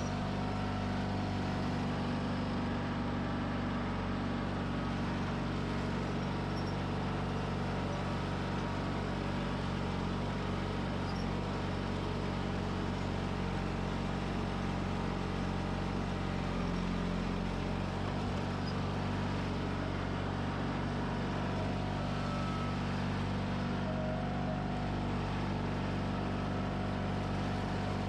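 John Deere 420 garden tractor's twin-cylinder Onan engine running steadily under way, a constant even drone while the tractor works its blade along a gravel drive.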